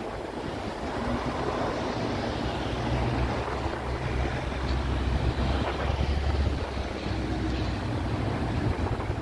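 Road traffic passing at a street junction, with wind buffeting a phone's microphone. A low rumble builds from about a second in and is strongest a little past the middle.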